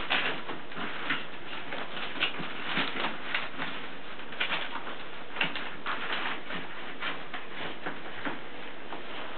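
Four-week-old bulldog puppies making short, high squeaks as they play, coming irregularly and often overlapping, over a steady background hiss.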